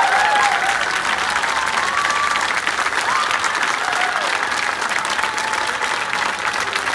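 Crowd applauding steadily, with a few voices calling out over the clapping.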